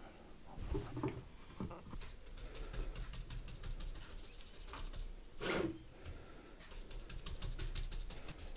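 Brush strokes as varnish stripper is spread over a wooden tabletop: faint, scratchy strokes that quicken into a rapid run in the last couple of seconds. A brief louder pitched sound comes a little past the middle.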